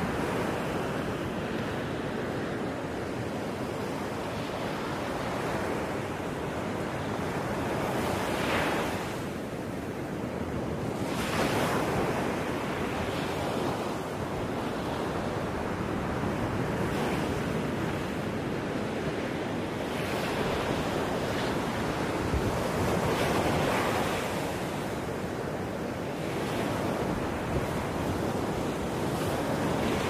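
Ocean surf washing in and out: a steady rushing that swells and ebbs every few seconds, with no music or voice over it.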